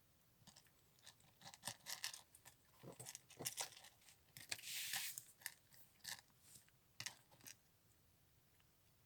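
A cat chewing and tearing at a piece of sausage: faint, irregular wet crunching clicks, with a short rustle about halfway through.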